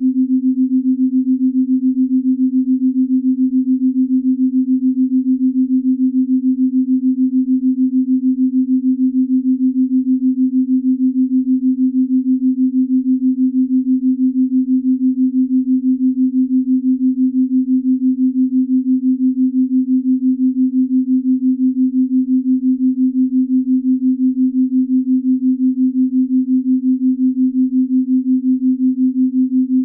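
Binaural-beat sleep tone: a single steady low tone that pulses quickly and evenly in loudness.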